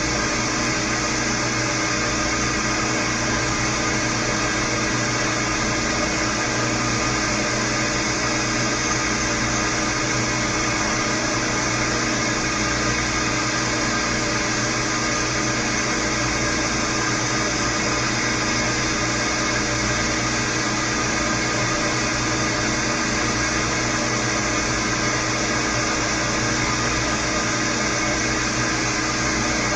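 Milling machine running steadily, its spindle turning a Woodruff keyseat cutter that is being fed into a shaft; an even mechanical hum with several steady tones that does not change.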